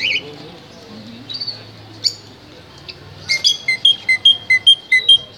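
Cage birds calling: a few short high chirps, then about three seconds in a quick run of about ten clear whistled notes, switching between a lower and a higher pitch.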